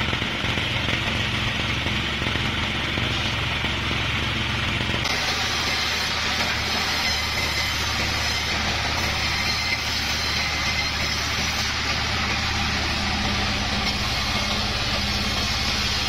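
Sawmill saw machinery running with a steady, unbroken mechanical drone and a low hum. About five seconds in, the sound switches abruptly to a different steady engine-like drone.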